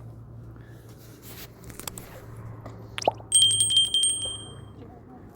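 A sharp knock about three seconds in, then a bell-like ring with a fast rattle of strikes, lasting about a second and a half before it fades.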